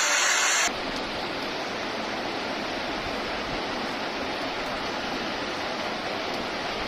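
Floodwater rushing in a steady torrent. A louder hiss at the start cuts off abruptly less than a second in.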